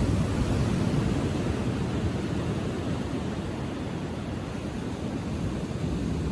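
Ocean surf breaking and washing onto a sandy beach at low tide: a steady low rush, a little louder in the first second or so, then easing off.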